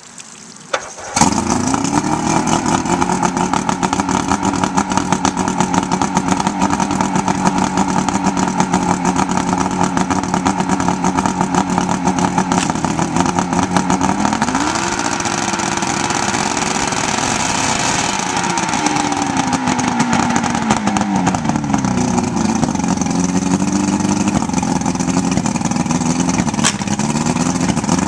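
Two-stroke outboard motor starting about a second in and idling steadily, then revved up, held, and brought back down, with a few more blips of the throttle near the end.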